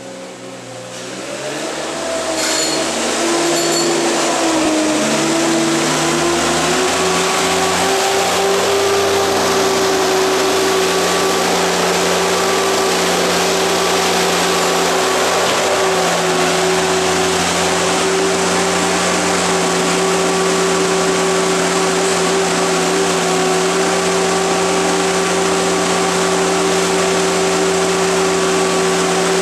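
Compact wheel loader's engine running at high revs while loading sawdust, with a steady whine. It rises in pitch and loudness over the first several seconds, then holds steady.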